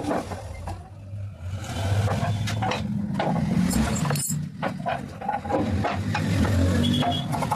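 CNC wood router running, with a low hum and tones that shift up and down as the machine moves, and scattered clicks.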